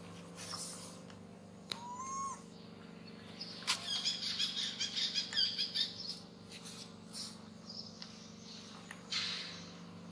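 Birds chirping, with a dense run of rapid high chirps for about two seconds near the middle and scattered single chirps around it.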